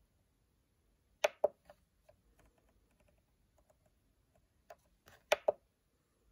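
Button presses on the SMC4-4-16A16B CNC motion controller's keypad: a pair of sharp clicks about a second in and another pair near the end, with faint ticks between.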